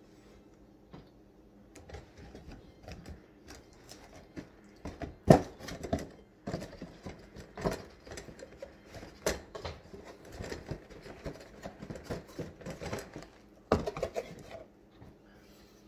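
Cardboard donut box being handled on a wooden counter: irregular taps, knocks and rustles, the sharpest about five seconds in and again near the end.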